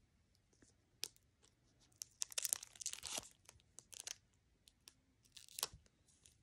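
Foil Pokémon booster pack wrapper being torn open by hand, crinkling and ripping in short crackly bursts. Most of the tearing comes between about two and three and a half seconds in, with a last sharp rip about five and a half seconds in.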